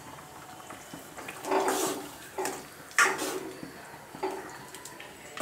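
Steel ladle stirring coconut paste into simmering chicken gravy in a metal kadai, scraping and clinking against the pan a few times, with a sharp knock about three seconds in.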